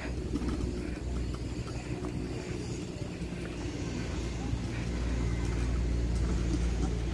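The small plastic wheels of a child's kick scooter rolling over paving tiles, a steady low rumble that grows slightly louder in the second half.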